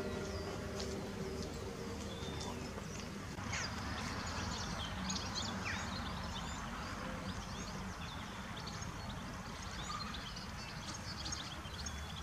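Small birds chirping and singing, many short calls, over a steady low rumble of wind on the microphone. The last of a church bell's ringing dies away in the first second.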